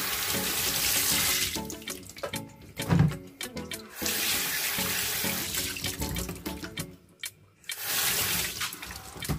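Tap water running into a stainless steel sink and splashing over raw chicken pieces as they are rinsed by hand. The splashing drops away twice and comes back, with a single thud about three seconds in.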